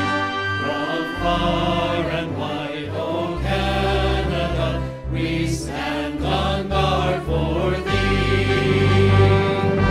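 Background music with sustained choir-like voices over a shifting bass line.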